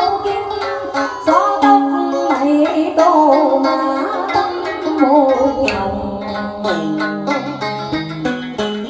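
Cải lương music: a plucked guitar and a đàn sến play a bending, ornamented melody, with a woman singing into a microphone through the first part and the instruments carrying on alone near the end.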